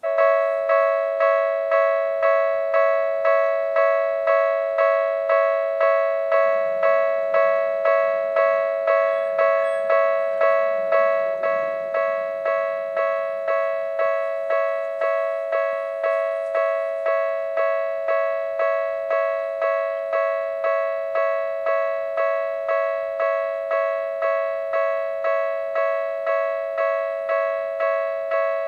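Japanese level-crossing alarm of the Tokyu type, an electronic bell ringing in repeated strikes just under two a second, each note dying away slightly. It starts suddenly, signalling an approaching train, and drops a little in level about twelve seconds in.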